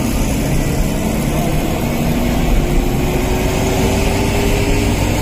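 Road and engine noise from inside a moving car: a steady rushing hum with a faint engine tone that rises slowly through the middle.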